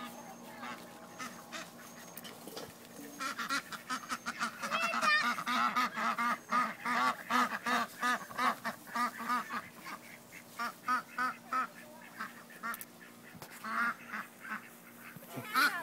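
A flock of domestic ducks quacking rapidly and continuously, the calls starting in earnest about three seconds in, easing briefly, then picking up again near the end.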